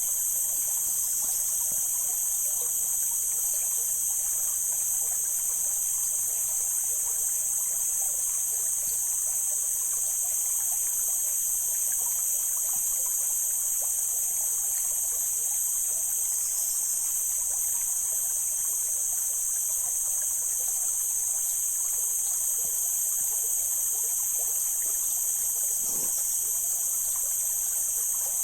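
Mountain stream water trickling and flowing steadily over rocks. A steady high-pitched hiss sits over it the whole time and is the loudest part.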